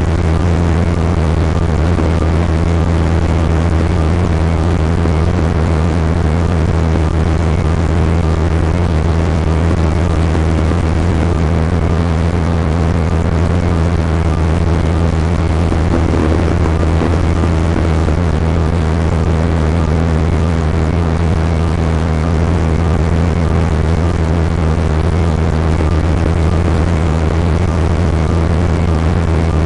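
Steady, unbroken low drone of a motor vehicle running, with even rushing noise over it.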